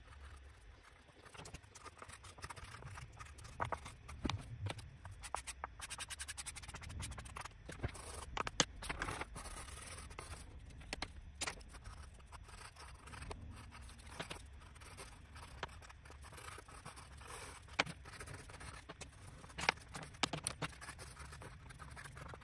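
Pencil scratching and scraping on paper, with scattered sharp clicks and taps of the tools against the drawing board.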